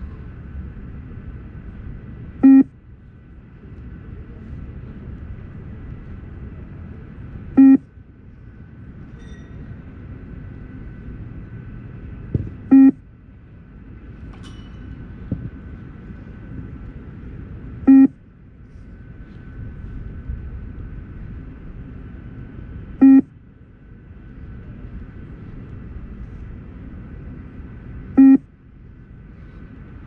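Beep test (20 m multistage shuttle run) recording sounding a short electronic beep six times, about every five seconds, each beep marking the end of one 20 m shuttle at level 12. A steady low background noise runs under the beeps.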